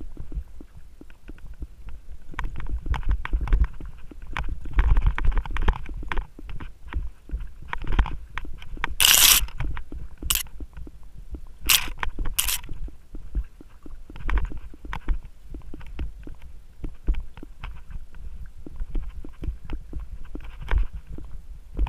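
Mountain bike rattling and bumping along a dirt singletrack, heard from a camera riding on the rider or bike: a steady low rumble with constant irregular knocks from the bumps, and a few short, sharp hissing scrapes a little under halfway through.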